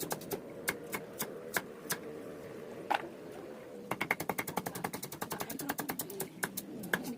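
Knife chopping on a cutting board: a few separate strokes, then from about four seconds in a fast run of chopping, about eight to ten strokes a second.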